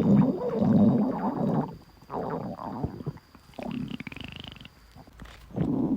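A person's stomach growling: four bouts of low gurgling rumbles, each about a second long, the third with a short rising squeal.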